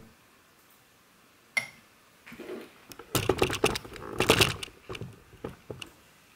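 A hand handling a small glass bowl on a wooden board, with clicks and light knocks of glass on wood. There is one sharp click about one and a half seconds in, then a quick cluster of clicks and rubbing in the middle, thinning to a few scattered clicks.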